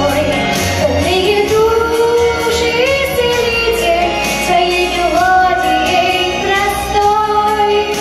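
A young girl singing a pop song into a handheld microphone over musical accompaniment, holding long, drawn-out notes.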